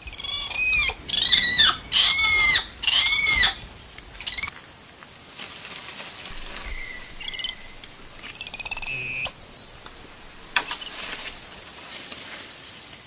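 Central American spider monkey calling: four loud, high, wavering calls in quick succession in the first few seconds, each rising then falling in pitch, followed by a few fainter calls.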